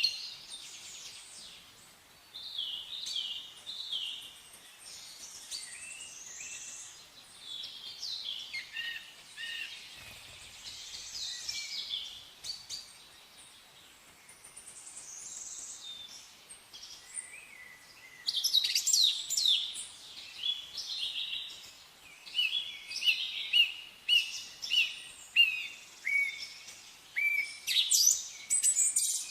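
Songbirds chirping and singing, short overlapping calls and trills, growing busier and louder about two-thirds of the way through.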